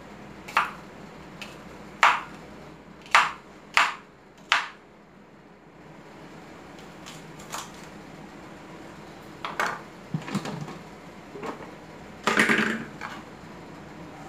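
Kitchen knife slicing cucumber on a wooden cutting board: five sharp knocks of the blade striking the board in the first five seconds. In the second half come a few longer clattering sounds as the slices are dropped into the plastic blender jar.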